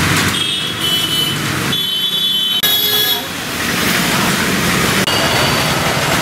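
Street traffic with engines running and horns tooting: a couple of short high horn blasts in the first three seconds over a steady wash of road noise.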